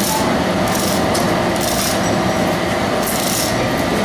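Large forge hearth fire burning hard with its air blast on: a steady roar with a low hum underneath and a hiss that swells now and then. It is the fire heating the steel for the flanging of a locomotive firebox tube plate.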